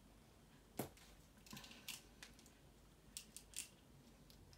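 Small plastic clicks and handling noises of an action figure's head being swapped onto a body. There is one sharp click about a second in, then a few scattered lighter clicks and scrapes.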